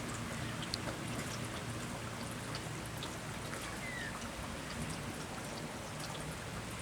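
Small creek trickling steadily, a light flow set running by about 20 mm of rain on saturated ground, with faint scattered drips and ticks of water.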